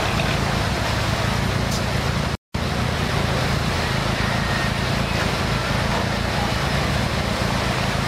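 Engine of a modified off-road 4x4 competition vehicle running steadily under load as it crawls up a steep muddy slope, with a momentary dropout in the recording about two and a half seconds in.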